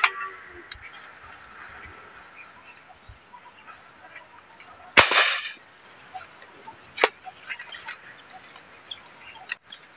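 Airgun fishing shot at a fish in a pond, heard as a few sharp, sudden sounds: a brief crack right at the start, a louder sharp report with a short tail about five seconds in, and a single crisp click about two seconds later.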